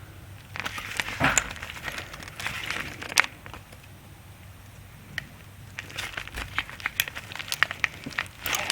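Close-up handling noise from a plastic wiring connector: irregular small clicks, ticks and rustling as a fine screwdriver works the pin's locking tab and the wires are moved. There are two busy stretches with a quieter spell between.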